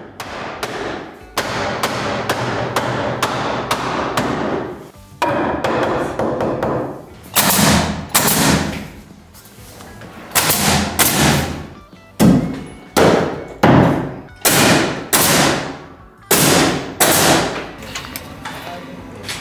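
Pneumatic coil-fed nail gun firing into a wooden window frame: about eleven sharp shots, singly and in quick pairs, starting about seven seconds in.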